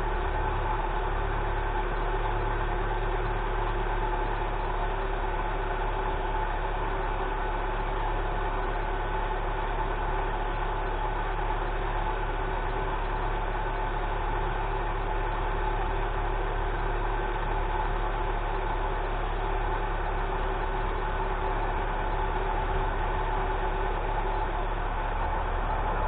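1995 Nissan pickup's engine idling steadily on its first run after sitting since the previous August.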